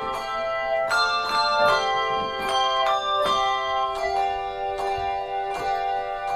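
Handbell choir playing a piece: hand bells struck about two to three times a second, each note ringing on and overlapping the next to build chords.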